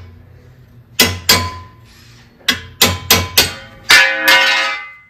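Hammer striking a center punch to knock the leftover thread shell of a drilled-out 1/4-inch bolt from a steel bracket in a vise: six sharp metallic taps in pairs and small groups. About four seconds in comes a louder metal clang that rings for about a second as the bracket falls out of the vise.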